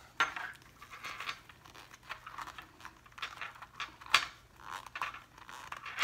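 Vinyl and stiff bag panel material being handled and worked through a slit, making short rustling and scraping sounds with scattered light clicks and one sharp click about four seconds in.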